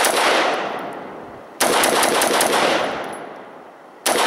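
Slow single shots from a Smith & Wesson M&P15T AR-15 rifle with a standard A2 flash hider: the tail of one shot, then two more about two and a half seconds apart, the last near the end. Each crack echoes and fades over about two seconds.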